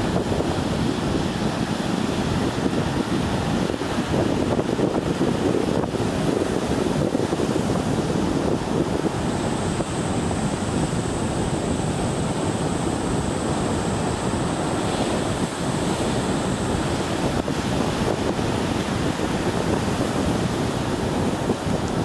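Surf washing on a rocky shoreline with wind buffeting the microphone: a steady rushing noise with no clear breaks.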